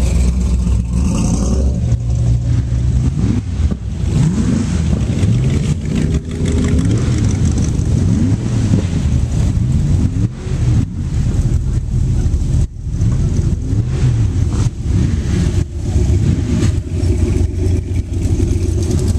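Car engine revving, its pitch rising and falling again and again, with a brief cut in the sound about two-thirds through.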